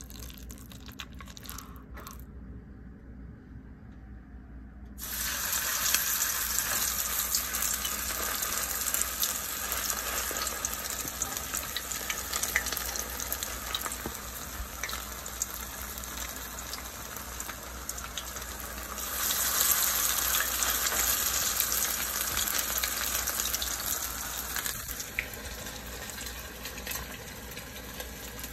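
Salmon patties frying in hot oil in a skillet, sizzling. After a few faint clicks, the sizzle starts suddenly about five seconds in as a patty goes into the oil. It swells again about two-thirds of the way through, then eases a little near the end.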